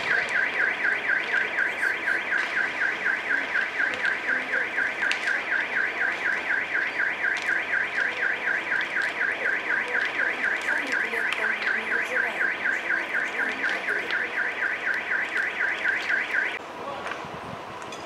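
Car alarm sounding a rapid, evenly pulsing electronic tone that cuts off suddenly about sixteen seconds in. Underneath is a low noise with faint scattered crackles from a car burning nearby.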